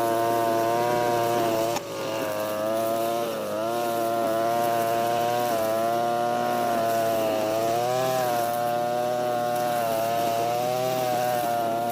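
Europa Hilt EH4326 (TB43) two-stroke brush cutter running at high revs, its pitch sagging and recovering as it cuts, with a brief dip in engine note about two seconds in.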